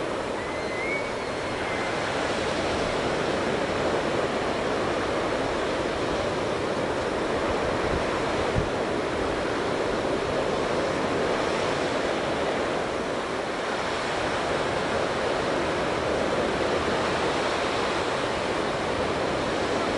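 Surf breaking on a sandy beach, a steady rushing wash of waves, with some wind on the microphone. A single brief bump about eight and a half seconds in.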